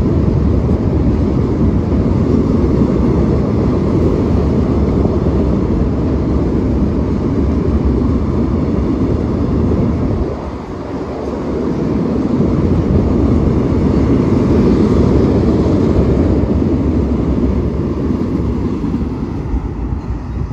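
Container freight wagons rolling past on the rails: a loud, steady rumble of wheels on track, dipping briefly about ten seconds in.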